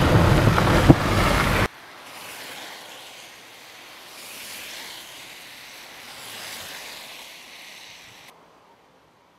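Loud rumble and rush of a car driving over a rough snowy dirt road, heard from inside the car, with one sharp knock about a second in; it cuts off abruptly under two seconds in. Then a much softer rush of wind swells and fades, stopping about a second before the end.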